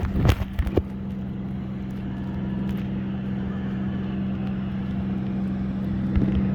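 Steady engine drone from the parasail tow boat, an even hum with no change in pitch, with a few sharp clicks in the first second.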